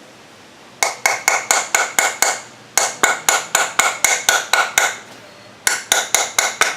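Hammer striking metal in three quick runs of blows, about four or five a second, each blow ringing briefly. This is the hammering used to collapse the old torque converter seal in the transmission so it can be pried out.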